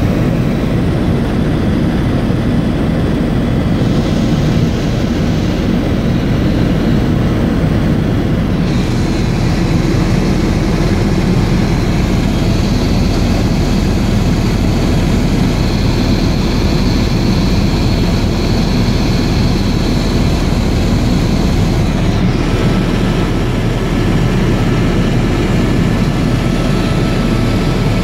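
Helicopter running steadily: loud, constant engine and rotor noise with a fast low pulsing.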